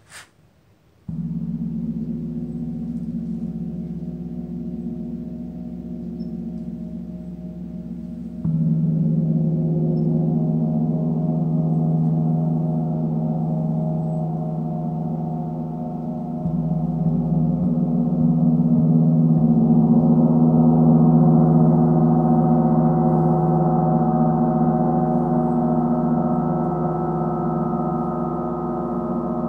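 Paiste 38-inch Planet Sun gong, the deepest-pitched of Paiste's Planet gongs, played with a large soft-headed Meinl gong mallet. It is struck about a second in, again around eight seconds and around sixteen seconds. Each stroke swells the sound, which builds into a sustained, shimmering wash of many overlapping tones that does not die away between strokes.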